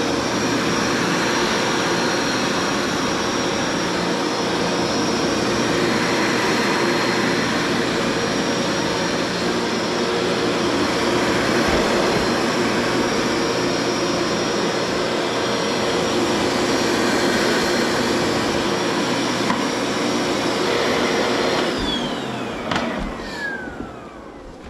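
Bissell ProHeat carpet cleaner running steadily, its suction motor drawing air with a steady whine, while being tested after a belt replacement. About three seconds before the end it is switched off and the whine falls as the motor winds down.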